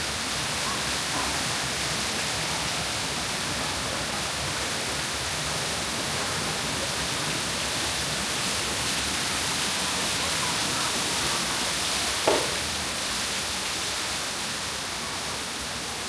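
Steady rush of falling water, like a pool waterfall, with one short sharp knock about twelve seconds in.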